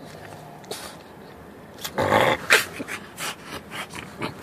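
French bulldog vocalising and scuffling as it rolls and thrashes in a fleece bed while wearing an inflatable recovery collar. The loudest outburst comes about two seconds in, followed by a string of short, sharp noises.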